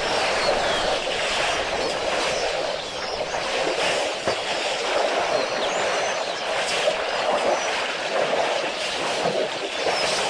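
African elephants wading in a shallow waterhole: a steady wash of sloshing and splashing water, with a few faint high bird chirps over it.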